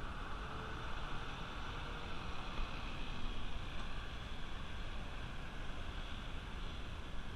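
Semi-trailer truck hauling a shipping container drives past and away, a steady engine and tyre noise with no clear peak. Wind rumbles on the microphone throughout.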